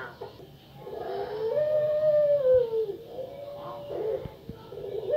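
Female puter pelung, a Barbary dove kept for its long, deep coo, giving one long drawn-out coo that rises and sinks slowly in pitch, followed by a second, shorter coo.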